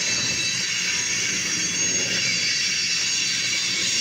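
Freight train of covered grain hopper cars rolling past, a steady rumble of wheels on rail with thin, high, steady wheel squeal, heard from inside a car.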